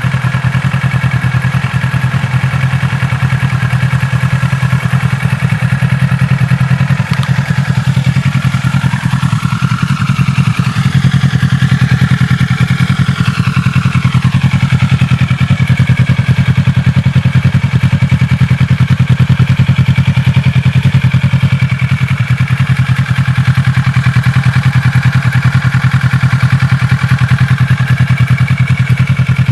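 Kawasaki ER-6n's parallel-twin engine running steadily through a full Akrapovič exhaust with dB eater and catalyst. About a third of the way through, a fainter higher tone rises and falls.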